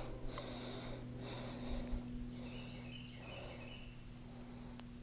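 Quiet outdoor ambience: a faint steady insect drone with a low steady hum underneath, and a few faint bird chirps about halfway through.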